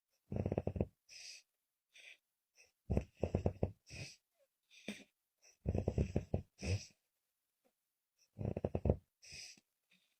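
A sleeping woman's snoring: four loud, fluttering snores about every two and a half seconds, each followed by a shorter, airy breath.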